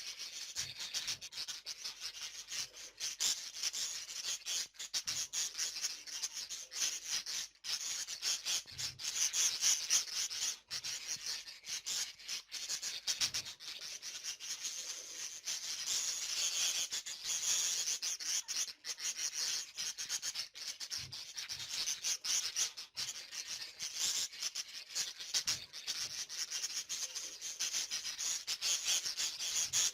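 A flock of budgerigars chattering continuously: a dense, scratchy warble of rapid high clicks and trills.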